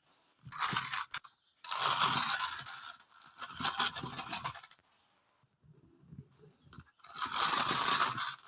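Crunching and scraping of toy packaging being handled and opened, in several bursts of about a second each with short pauses between.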